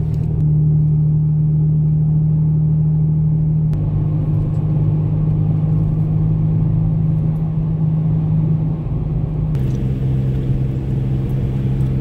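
Steady low drone of a vehicle's engine and road noise heard inside the cabin while cruising on the highway. Its pitch steps abruptly a few times.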